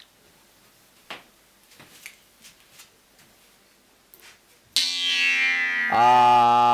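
A few faint clicks, then nearly five seconds in a jew's harp is plucked: a sudden bright twang whose overtone sweeps downward, settling about a second later into a steady buzzing drone full of overtones.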